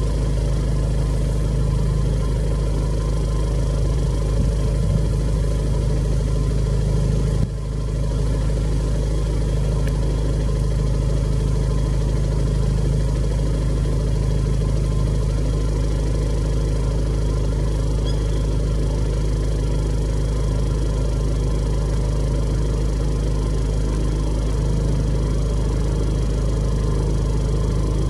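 Steady low engine hum, like a motor idling, with a short dip about seven and a half seconds in.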